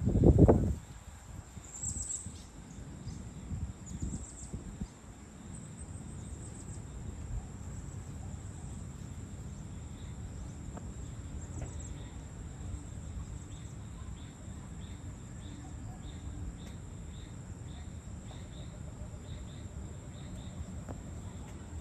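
Evening outdoor ambience: insects keep up a steady high-pitched drone, with a few bird chirps in the first few seconds and later a run of short calls repeated about twice a second. A low rumble sits underneath, with a brief loud low burst at the very start.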